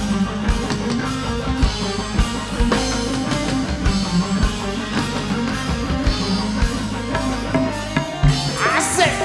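Live dangdut band playing an instrumental passage without vocals: steady drumming on a drum kit under electric guitar and keyboard. A quick sliding note comes near the end.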